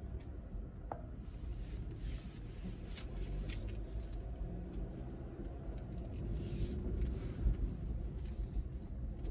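Low, steady rumble of a car driving slowly, heard from inside the cabin, with a few faint clicks and rustles.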